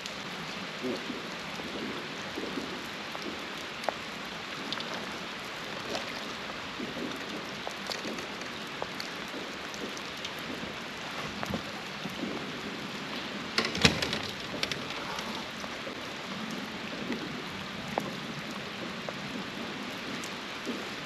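Steady rain falling, an even hiss with scattered pattering drops. About two-thirds of the way through comes a brief cluster of sharper knocks.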